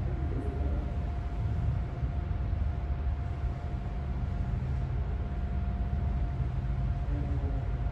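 Steady outdoor background noise: a low rumble with a faint constant hum and a light even hiss over it, unchanging throughout.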